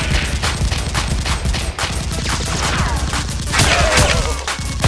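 Rapid gunfire-style shooting, several sharp shots a second in quick continuous bursts, as dubbed over blasters firing in a staged Nerf battle.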